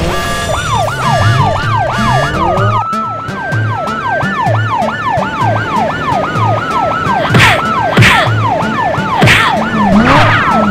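Cartoon police car siren sounding in quick up-and-down sweeps, about three or four a second, over background music with a steady bass beat. A few short whooshing bursts come in the second half.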